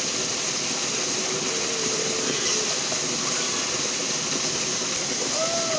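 Steady rush of flowing stream water, an even hiss with no breaks.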